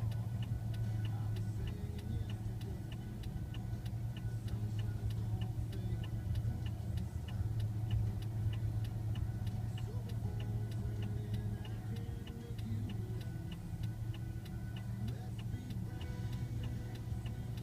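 Bulldozer engine running steadily with a low drone, a light tick repeating evenly a little over twice a second over it.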